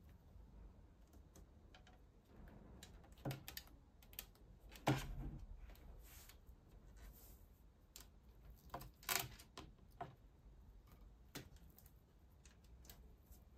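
Scattered light clicks and knocks of hard plastic parts handled on a table as an LCD touch screen is fitted into a tablet's plastic front housing, the sharpest knocks about five and nine seconds in.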